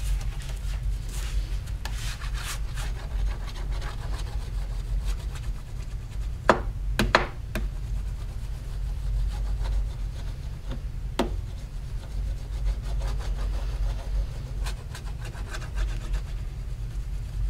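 Scratchy rubbing strokes of a copper printing plate being abraded and polished by hand, with a few sharp clicks around the middle. A steady low hum runs underneath.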